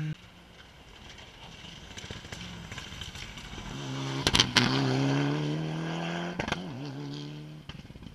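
Rally car engine approaching at high revs, with a quick cluster of sharp cracks about four seconds in as it comes past. A steady engine note follows, then one more crack, and the car fades away into the distance.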